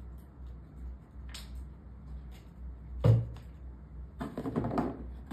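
A steady low hum with a single sharp thump about three seconds in, then about a second of quick rustling and clicking, like handling noise.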